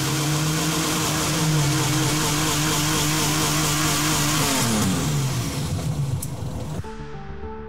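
Toyota 1JZ engine and the turbocharger it drives running at steady high revs with a loud turbo hiss; about four and a half seconds in the revs and hiss fall away as it winds down. Music begins near the end.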